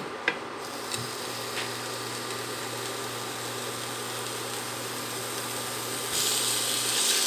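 Slices of marinated pork belly sizzling as they are laid into hot oil in a ceramic frying pan with chopsticks, with a few light clicks early on; the sizzle grows louder about six seconds in as a second slice goes in. A steady low hum runs underneath.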